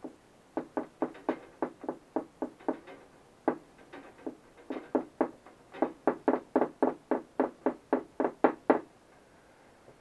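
A rag scrubbed back and forth along the vinyl jacket of a dock power cord, quick rubbing strokes several times a second, pausing briefly a few times and stopping about nine seconds in.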